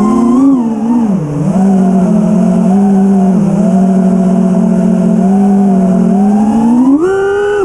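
Brushless motors of a 5-inch 6S FPV quadcopter (iFlight Xing-E 2207 1800kv with 5x4.3 props) whining, heard from the onboard camera. The pitch dips briefly about a second in, holds steady at cruise throttle, then climbs sharply near the end as the throttle is punched up.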